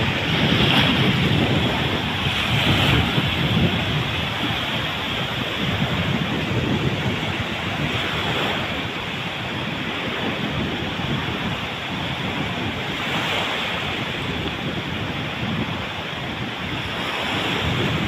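Small waves breaking and washing up a sandy shore, with strong wind buffeting the microphone.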